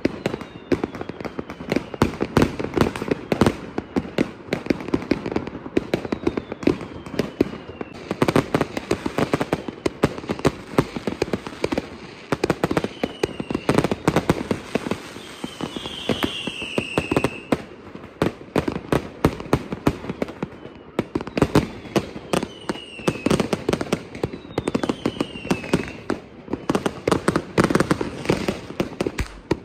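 Fireworks and firecrackers going off densely on all sides: a continuous mass of bangs and crackling, with several short whistles falling in pitch.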